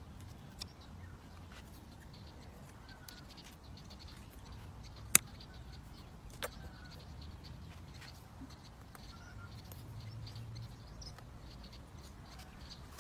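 Bonsai cutters snipping twigs on a ta-ko (Diospyros) bonsai: two sharp snips about a second and a half apart near the middle, the first much louder, with a few faint clicks. Faint bird chirps and a low steady rumble lie underneath.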